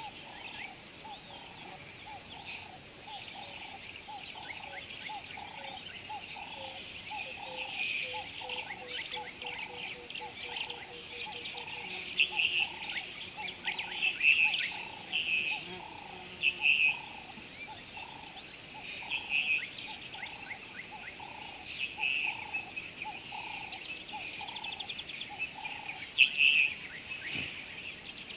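Bush ambience: birds calling and chirping in scattered bursts, with an even run of calls about twice a second, over a steady high insect drone.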